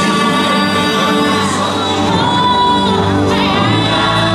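Fireworks show soundtrack: loud music with singing and a choir.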